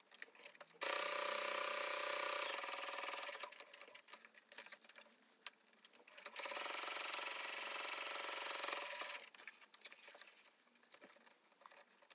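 Brother sewing machine stitching at a steady speed in two runs of about three seconds each, with a pause of about three seconds between them.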